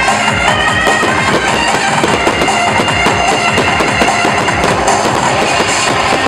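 A fast, dense string of sharp cracks and pops from fireworks, mixed with loud music of drums and a wind instrument.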